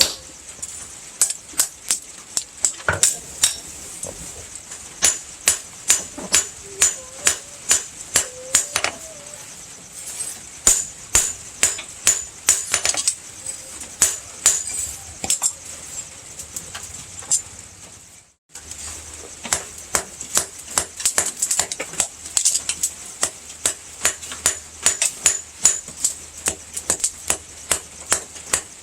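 Blacksmith's hand hammer forging rebar steel on an anvil: a steady run of ringing metal-on-metal blows, about two to three a second, broken by a short gap about two-thirds of the way through.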